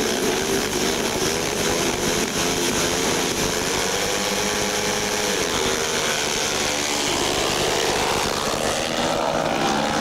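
Several speedway motorcycles' 500 cc single-cylinder engines revving hard as the riders leave the start and race toward the first bend, the engine pitch sliding up and down.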